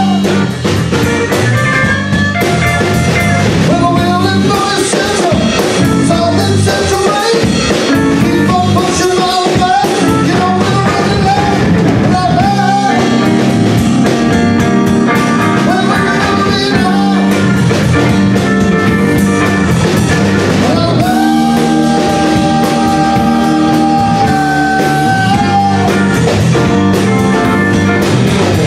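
Live rock band playing loud: electric guitar, bass guitar and drum kit, with a lead line of long held notes that bend in pitch over the top.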